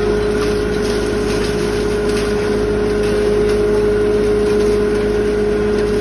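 Coal grinding machine driven by a belt from an electric motor, running at speed: a loud steady hum with one strong steady whine over it.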